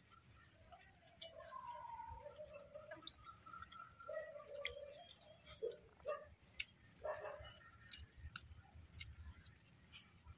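Birds calling, a scatter of short chirps and whistles, over sharp wet mouth clicks and chewing from people eating rice and fish curry by hand.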